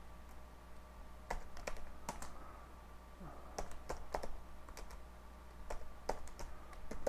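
Computer keyboard keys clicking in irregular runs of typing, a few keystrokes at a time with short pauses between.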